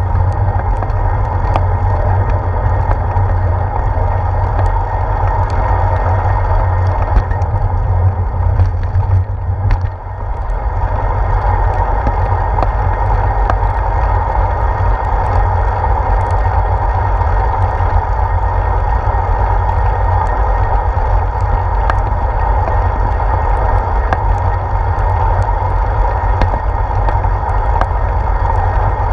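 Wind and road rumble picked up by a handlebar-mounted GoPro Hero 4 on a moving bicycle: a steady, loud low rumble with a hiss over it and faint ticks and rattles from the bike, easing briefly about ten seconds in.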